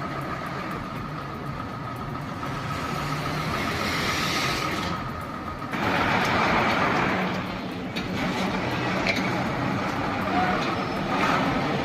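A heavy vehicle's engine running steadily over road and traffic noise, swelling louder for a couple of seconds around the six-second mark.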